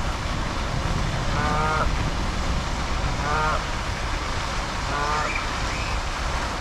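A Canada goose honking three times, short calls evenly spaced about a second and a half apart, over steady background noise.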